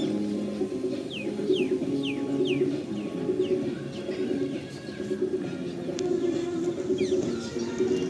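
Birds chirping: a quick run of short, downward-sliding chirps about a second in, and a few more near the end, over a dense, continuous low background.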